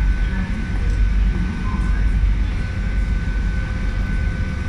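London Underground Central line train standing at the platform with its doors open: a steady low rumble and hum with a thin, steady whine above it.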